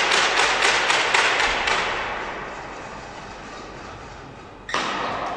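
Spectators applauding after a badminton rally ends, a quick run of claps that dies away within about two seconds. Near the end a single sudden thump rings out in the hall.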